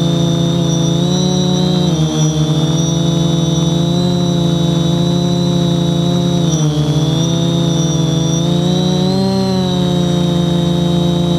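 Quadcopter's electric motors and propellers running close to the microphone: a loud steady drone with a high whine above it, the pitch wavering slightly up and down as the motors change speed.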